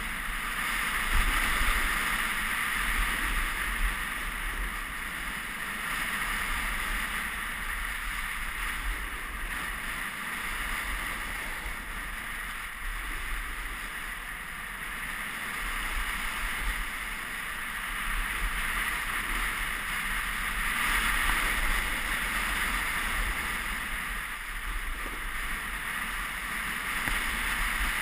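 Wind rushing over the GoPro's microphone together with the hiss of sliding fast down a groomed ski run, a steady rushing noise that swells with speed, louder in the first few seconds and again about three-quarters of the way through.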